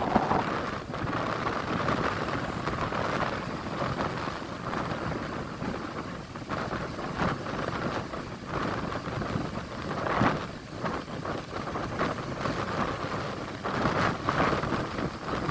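Atlantic surf breaking and washing ashore, with strong wind rushing over the microphone; the roar swells in surges, loudest about ten seconds in and again near the end.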